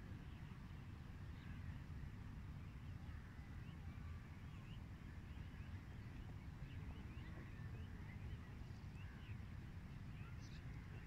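Faint outdoor ambience: many small birds chirping in short, scattered calls over a steady low rumble.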